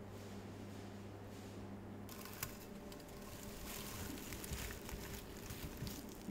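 A low steady hum for about two seconds, then rustling of straw bedding with scattered small clicks as domestic rabbits shuffle close by.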